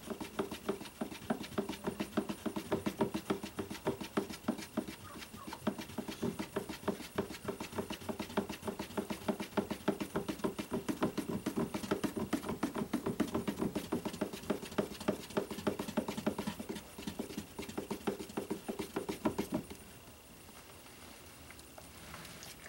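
Wooden stir stick knocking and scraping against a plastic cup as two-part (part A and part B) buoyancy foam is hand-mixed, a quick steady rhythm of several strokes a second that stops near the end.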